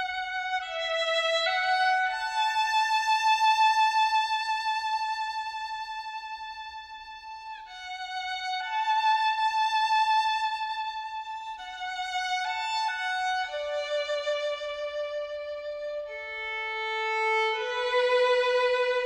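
Solo violin playing a slow melody of long held notes with vibrato, gliding between some of the notes.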